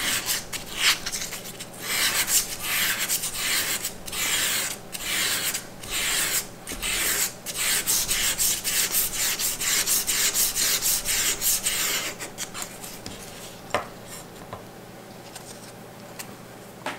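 320-grit carbide abrasive paper rubbed along an aluminium beam in one direction, a run of quick scratchy strokes, about three a second, abrading the surface for strain-gauge bonding. The sanding stops about twelve seconds in, and a single click follows.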